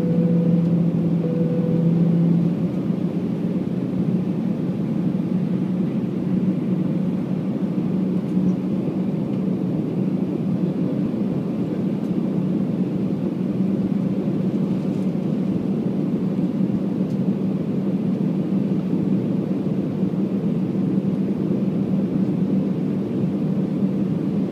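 Airbus A319 cabin noise heard by the wing: the CFM56 jet engines and rushing air make a steady drone with a low hum, on the descent to landing. The hum is louder and steadier for the first couple of seconds, then settles.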